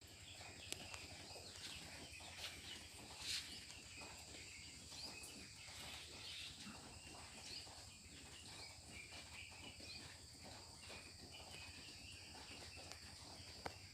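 Faint poultry-shed ambience: scattered short chirps from the chickens and small clicks over a steady low hum and a steady high whine.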